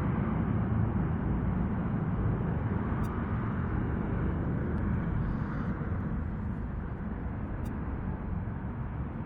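Jet engines of a Spirit Airlines airliner climbing out after takeoff at full power: a steady low noise that slowly fades as the aircraft moves away.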